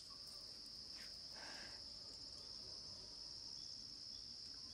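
Faint, steady, high-pitched chirring of crickets in a late-summer night chorus.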